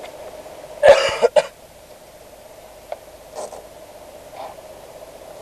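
A person coughs in a short burst of two or three quick coughs about a second in, over a steady hum inside the car.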